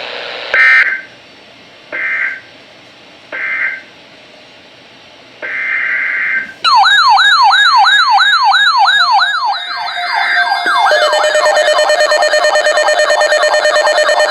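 Emergency Alert System data bursts from a weather radio broadcast: three short screeching bursts of the end-of-message code about a second and a half apart, then a longer header burst for the next alert. About halfway in, a loud electronic siren-like alert tone starts, wailing rapidly up and down, and near the end it turns into a steady, pulsing chord of tones.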